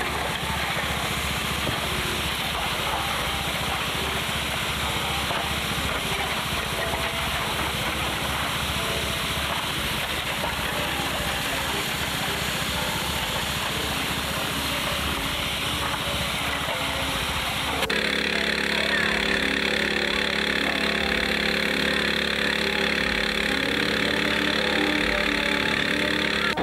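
Small engine running steadily with a fast low pulse. About 18 seconds in, the sound changes abruptly to a slightly louder, evener engine tone.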